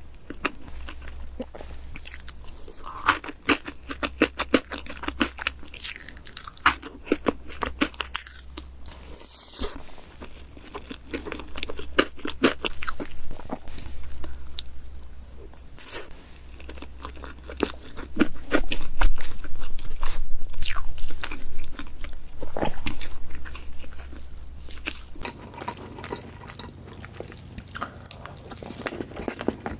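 Close-miked eating of chocolate cake: bites, crunching and chewing with many short crackling mouth sounds, over a low steady hum.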